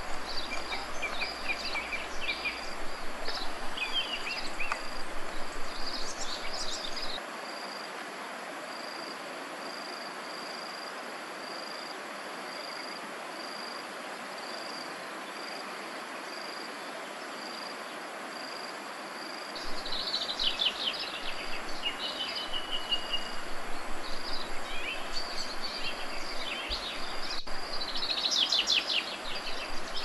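An insect chirps steadily in an evenly repeated high pulse, with short high bird chirps and trills a couple of seconds in and again in the last third.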